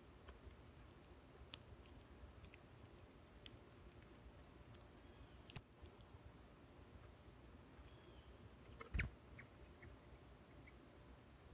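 Brief, sharp, high chip notes from a small songbird, four or five spaced out over several seconds, with a soft low thump about nine seconds in.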